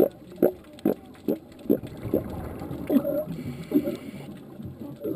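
California sea lions barking underwater: a quick, even run of barks a little over two a second, turning less regular about halfway through.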